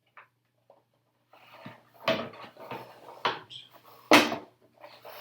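Masking tape being peeled off a painted clear-plastic RC truck body shell, with crackling and several sharp snaps of the thin plastic. It starts about a second in, and the loudest snap comes near the end.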